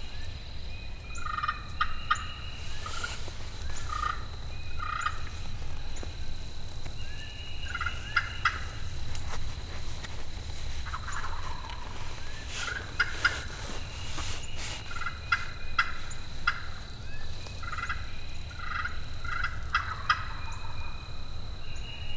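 Osceola wild turkeys gobbling again and again, many short rattling gobbles in quick succession.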